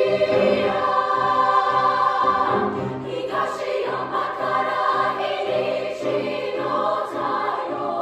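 Choir singing, many voices holding long sustained notes together.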